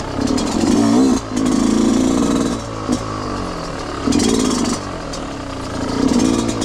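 Yamaha YZ125 two-stroke single-cylinder motorcycle engine revving under load off-road. Throttle bursts come in three surges, the pitch rising and falling as the throttle opens and closes.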